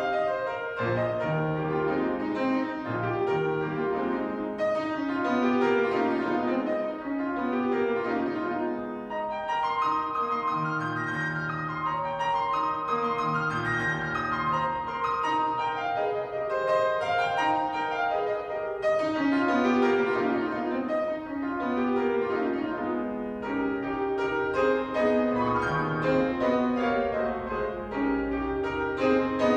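Solo grand piano playing a classical piece live in a large hall: a dense stream of notes, with quick runs rising and falling over bass notes.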